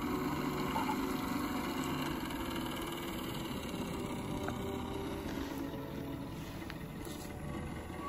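Model steam launch with a Cheddar Gemini twin-cylinder steam engine, running steadily under way on the water.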